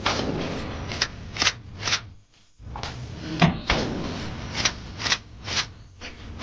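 A series of sharp knocks and clatters, irregularly spaced about half a second to a second apart, over a steady background noise that briefly drops out about two and a half seconds in.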